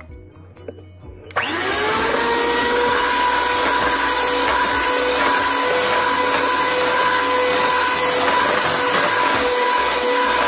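A Bella 10-speed, 250-watt electric hand mixer is switched on about a second and a half in, after a few faint handling clicks. Its motor whirs up to a steady whine and holds there while the beaters cream butter.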